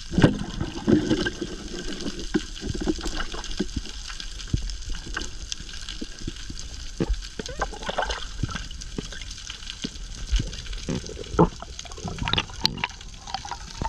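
Underwater reef sound picked up by the camera: a steady watery hiss full of scattered crackling clicks, with a few louder knocks, the loudest right at the start.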